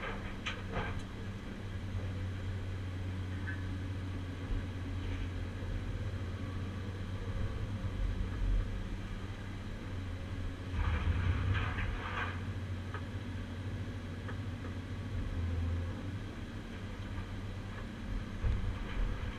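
Caterpillar 345C long-front demolition excavator's diesel engine running steadily, heard from inside the cab. Over it come clanks and scraping of scrap steel worked by the Atlas Copco CC 4700 scrap shear: briefly at the start, and in a longer burst about eleven seconds in.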